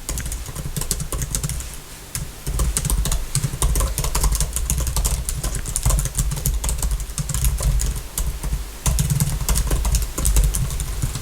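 Fast typing on a computer keyboard close to the microphone: a dense, uneven run of key clicks, with a strong low rumble beneath that falls away briefly about two seconds in and again near nine seconds.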